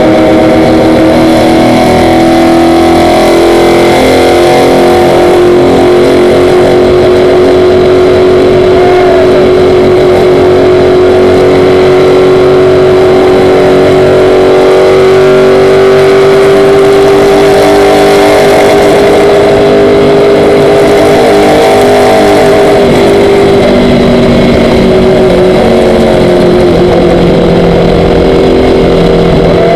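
Stock car's V8 engine running at steady high revs at speed, very loud from inside the cockpit, its pitch nearly constant with a slight rise partway through and a slight easing near the end.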